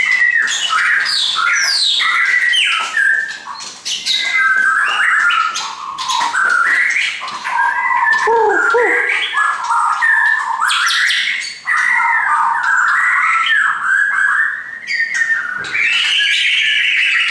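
White-rumped shama singing a loud, varied song of whistled notes, rising and falling glides and harsher clicking notes, with brief pauses.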